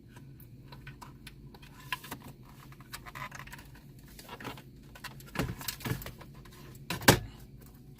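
Plastic wiring-harness connectors being handled and pushed into the back of a car radio: scattered light clicks and rattles, the loudest a sharp click about seven seconds in as a plug locks in.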